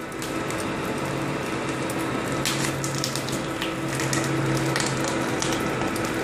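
Corn-puff extruder running with a steady motor hum, while the hot puffed corn-meal tube crackles and crunches as it pushes out of the die and is bent by gloved hands, with a few louder crunches through the middle.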